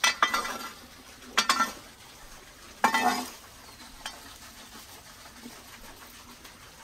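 Pilaf being scooped and packed into the lamb with a utensil against a pot: three short scraping strokes about a second and a half apart, then a fainter one about four seconds in.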